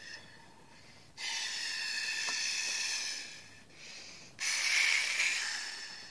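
Breath blown hard through a straw into slime, inflating a slime bubble: a long hissing blow, a short softer one, then a louder blow that trails off.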